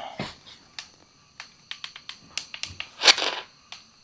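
A scatter of small sharp clicks and taps from equipment being handled, then one short, loud breathy puff about three seconds in, like a sniff or snort close to the microphone.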